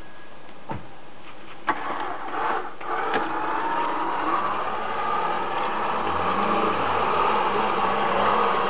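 A few sharp knocks, then an off-road vehicle's engine starts about three seconds in and runs steadily, getting slightly louder, during a mud recovery with a winch cable rigged.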